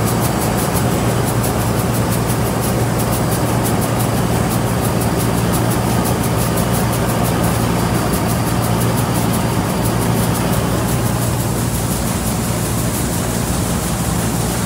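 Rice combine harvester running steadily with a constant engine drone and a fast, even ticking from its machinery; the ticking fades near the end.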